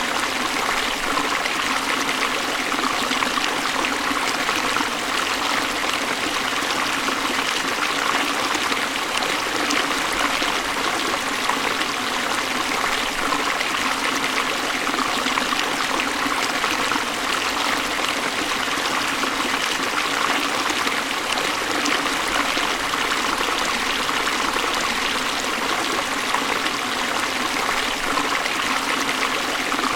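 Waterfall: a steady, unbroken rush of falling water, more splashing hiss than deep rumble.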